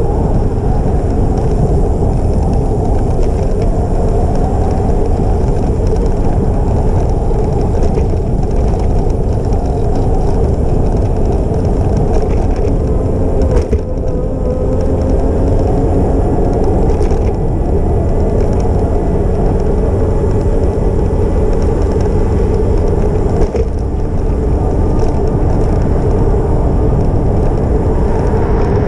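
A moving e-bike heard through an action camera's microphone: a steady rush of wind and road noise with a faint motor hum that rises a little about halfway through. Two short knocks come about 14 and 23.5 seconds in, as from bumps in the path.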